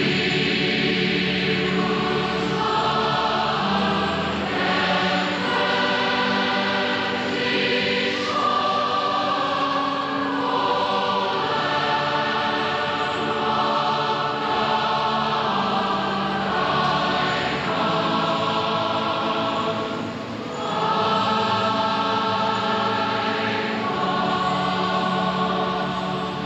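Large choir singing a slow hymn in long held notes: the invitation hymn sung while people come forward at an evangelistic altar call.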